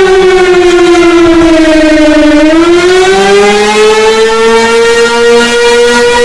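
Loud emergency warning siren wailing. Its pitch slides down for about two and a half seconds, then rises again and holds steady.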